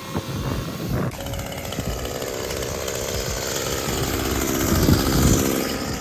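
Honda twin-blade walk-behind lawn mower's small engine running steadily while mowing grass, swelling a little about five seconds in.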